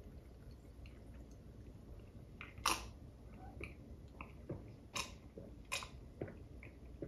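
A person drinking iced Sprite from a mug: quiet mouth and swallowing sounds, with a few short sharp clicks, one just before the middle and several more spaced well under a second apart in the second half.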